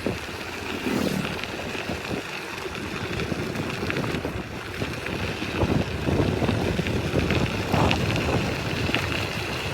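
Wind buffeting the microphone: a steady rushing noise with irregular bumps and knocks through it.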